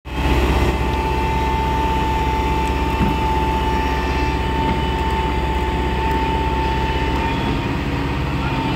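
Volvo EC140B LC crawler excavator's diesel engine running under load with a steady whining tone, as the boom presses down to lift the tracks. The low drone drops a little about seven seconds in, and there is a single light knock about three seconds in.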